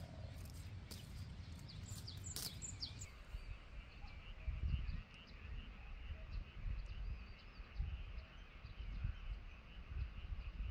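Evening countryside chorus: birds chirping in the first few seconds over a steady high trill of frogs and insects, with low gusty rumbling through the rest.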